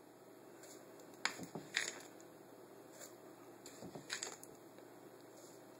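Spoon scooping granulated sugar and tipping it into a plastic bowl: scattered soft scrapes and taps, a cluster about a second and a half in and another about four seconds in.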